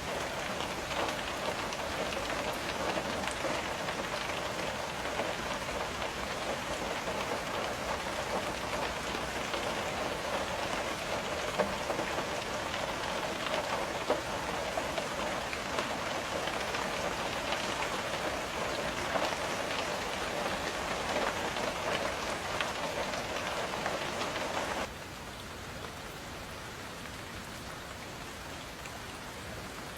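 Steady rain pattering on window glass, with a few sharper drop taps. About 25 seconds in it abruptly turns quieter and duller.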